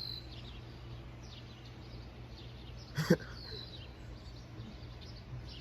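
Birds chirping in the background: scattered short, high chirps that fall in pitch, over a steady low hum, with one brief sharp sound about three seconds in.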